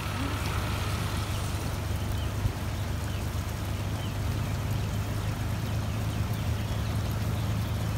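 Steam venting from geothermal fumaroles: a steady rushing hiss with a low rumble underneath.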